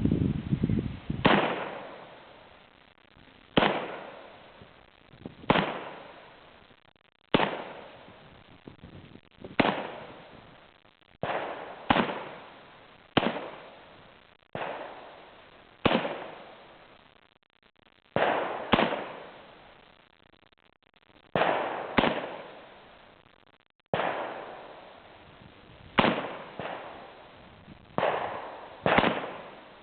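Arsenal SLR-107FR, a semi-automatic AK-103-pattern rifle in 7.62×39 mm, fired one shot at a time: about twenty shots, a second or two apart, each followed by a long echo dying away.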